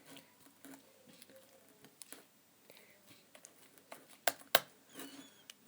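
Borax-free, glue-free detergent slime being squeezed and pulled in the fingers: soft sticky clicks and small pops, with two sharp snaps about four seconds in.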